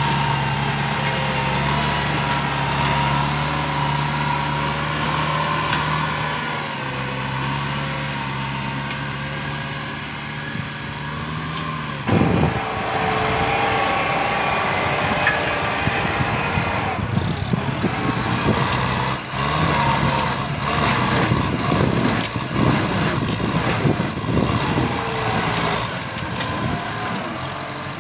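Kubota tractor's diesel engine running under load as its front dozer blade pushes through brush and small trees. It is a steady engine hum at first. About twelve seconds in the sound changes suddenly, and from then on the engine is joined by irregular cracking and snapping of branches being crushed.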